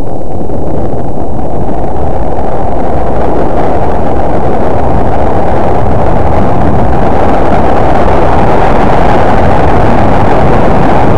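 Wind buffeting the microphone of a camera carried by a snowboarder riding downhill: a loud, steady, rumbling rush that spreads higher toward the end.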